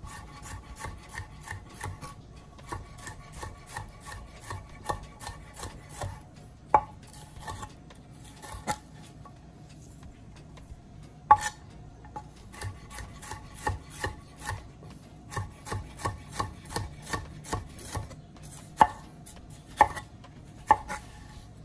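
Chef's knife slicing a red bell pepper into strips on a wooden cutting board: quick, even taps of the blade on the board, about three or four a second, with a few louder knocks and a brief pause near the middle.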